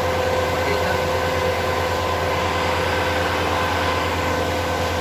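Steady drone of running machinery: a constant low hum with several steady whining tones above it, unchanging throughout.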